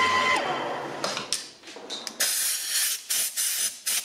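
Emco Maximat Super 11 lathe running with a steady whine, then switched off so the whine drops away as it winds down. This is followed by about half a dozen short hissing blasts from a compressed-air blow gun clearing chips from the freshly centre-drilled hole.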